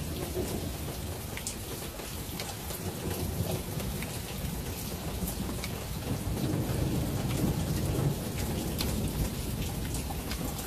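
Steady rain falling, with scattered drips striking nearby surfaces as sharp ticks. A low rumble of thunder swells about six seconds in and fades toward the end.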